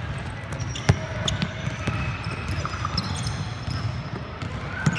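A basketball bouncing on a hardwood court, with the loudest bounce about a second in and another near the end. Short, high squeaks of sneakers on the floor come in between.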